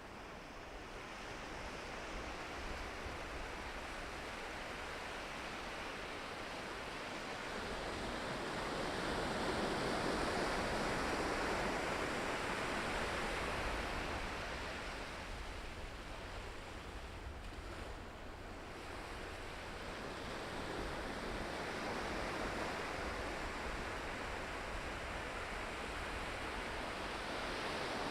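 Ocean waves breaking and washing on the shore, the surf swelling to a peak and falling back, then building again near the end, with some wind rumble on the microphone.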